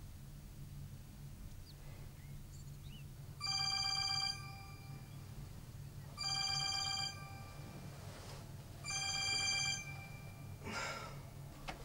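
A phone ringing: three rings of about a second each, spaced a couple of seconds apart, each a bright steady chord of tones. A rustle of bedding follows near the end.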